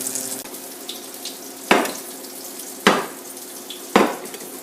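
Bacon-wrapped hot dogs sizzling in a frying pan, a steady hiss, with three sharp knocks about a second apart.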